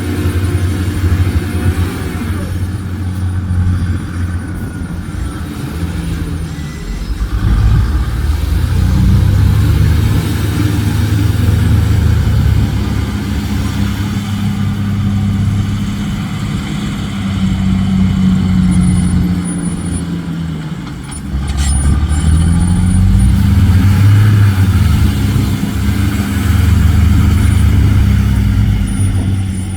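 Heavy dump truck's diesel engine running hard, its pitch rising and falling several times as it revs up and settles back. A single sharp click comes about two-thirds of the way through.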